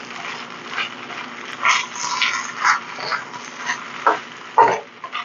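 Wooden spoon stirring and scraping fried rice around a wok, a run of short irregular scrapes with a few louder ones near the end.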